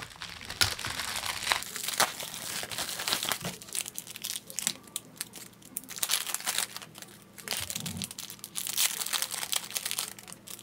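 Crinkling and rustling of plastic packaging as a padded mailer is opened and small clear plastic bags of nail parts are unpacked, in a dense run of irregular crackles.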